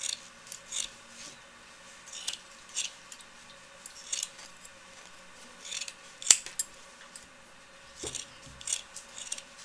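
Metal scissors cutting through a sheet of partly felted wool prefelt, in irregular short snips, some in quick pairs, with a sharp click of the blades about six seconds in.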